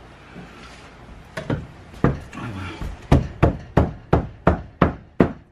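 Wood being struck: two scattered knocks, then seven even blows about three a second, tapping glued-up wooden pieces into line in wooden clamps.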